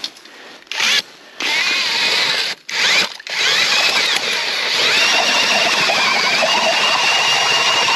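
Ice auger driven by a power drill, boring into the edge of an ice hole to widen it. It runs in a few short bursts, each spinning up with a rising whine, then in one long steady run of about five seconds that stops near the end.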